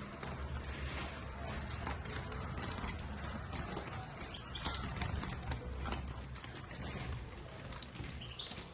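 Captive European goldfinches moving about: irregular fluttering, hopping and scratching, with a couple of faint short calls, over a steady low hum.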